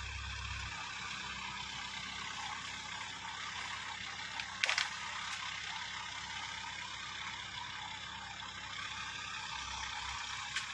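ACE mobile crane's diesel engine running steadily while the crane holds a cut tree trunk on its boom, with one sharp knock about halfway through.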